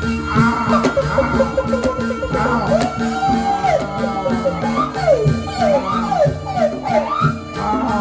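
Traditional Javanese music for a barongan dance: sustained gong-like tones under a steady percussion beat, with a high melody line of swooping, bending notes.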